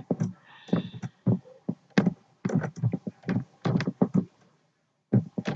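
Keystrokes on a computer keyboard: irregular clicks of typing, with a short pause near the end.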